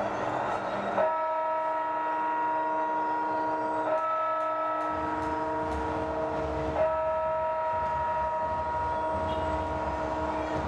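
A held chord of several steady tones, like a horn or drone, sounding from about a second in and re-striking or changing at about four and seven seconds in, with a low rumble underneath from about five seconds in.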